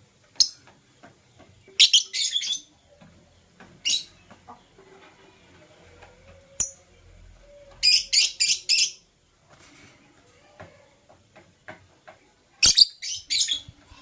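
Lovebirds giving shrill, high-pitched chirps: single chirps between quick runs of four or five, three runs in all, with faint light ticks in between.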